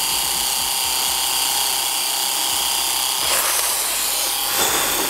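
Philips BRE245 corded epilator running steadily, a high motor whine with several fixed tones, as its rotating tweezer head is worked over forearm hair. The sound roughens briefly twice, a little over three seconds in and again about four and a half seconds in.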